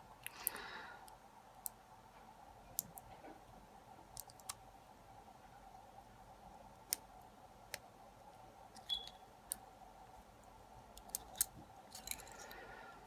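Faint, irregular small clicks and ticks of metal tools working a lock held in a vise, as a shim is worked in to gut the lock, with a brief high squeak about nine seconds in.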